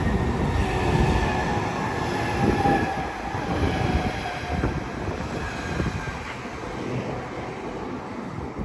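Southeastern Class 395 Javelin, a Hitachi electric multiple unit, running past close by as it slows into the station: a steady rumble of wheels on rail with a faint whine falling slowly in pitch, gradually fading.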